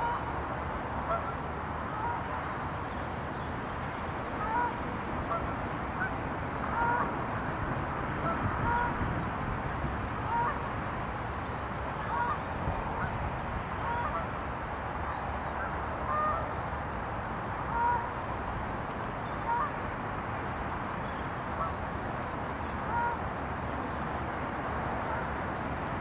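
Waterfowl calling: many short, mid-pitched calls scattered every second or two, over a steady background noise.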